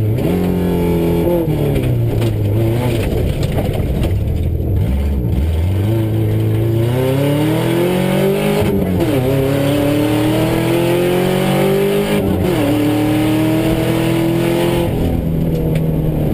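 Subaru rally car's flat-four engine heard from inside the cabin at full attack on a gravel stage. It revs up through the gears, its pitch climbing steadily and dropping sharply at each shift, with quick dips near the start and two long pulls in the second half, over steady gravel and road rumble.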